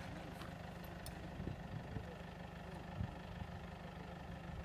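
A steady low engine drone, idling, with a few soft low thumps in the middle.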